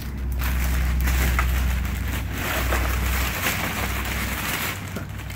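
Black plastic garbage bag crinkling and rustling as gloved hands dig through it, with a steady low rumble under it for the first three seconds or so.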